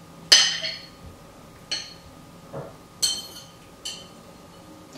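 Metal fork clinking against a plate while cutting into and picking up baked omelette: four sharp clinks with a short ringing, the first the loudest.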